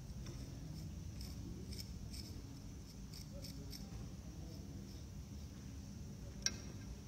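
Faint scratching as a hand draws lines in wet sand, in a scatter of short strokes over a low steady hum, with one sharper click near the end.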